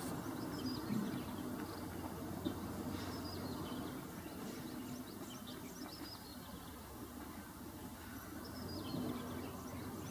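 Heavy container truck's diesel engine running low and steady as the truck crawls over a rough dirt road. Birds chirp over it in short, falling calls, several times.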